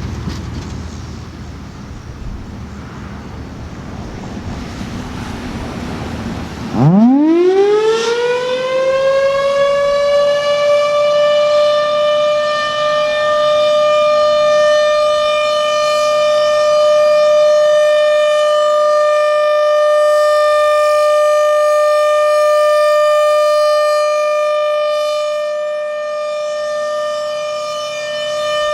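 Federal Sign & Signal Thunderbolt 1000 blower-driven outdoor warning siren starting up: after a low background rumble, it cuts in about seven seconds in, winds up in a rising pitch over several seconds, then holds one steady, loud tone with many overtones, the Full Alert signal.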